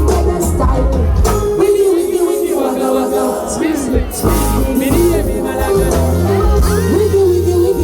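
Afrobeat-style pop song with heavy bass and a sung vocal line.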